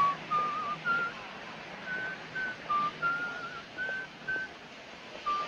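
A melody of short, high, slightly wavering notes, one at a time, over a steady background hiss and low hum.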